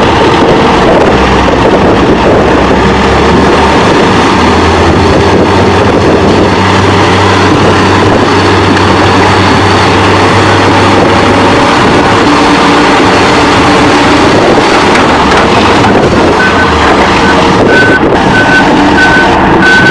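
Excavator's diesel engine running loud and rough. In the last few seconds a backup alarm starts beeping, about two beeps a second.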